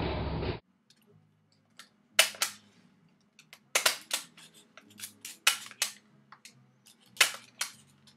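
A steady hiss that cuts off suddenly about half a second in, then a run of sharp, irregular clicks and snaps at close range, a few of them loud, over faint low tones.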